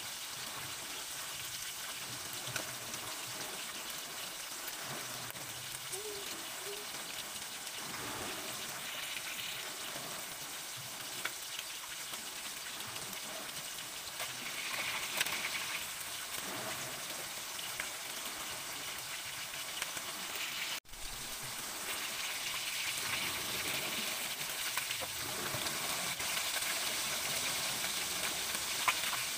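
Small bilong-bilong (moonfish) frying in oil in a metal wok, a steady sizzle, with a few light clicks of a spatula and tongs against the pan.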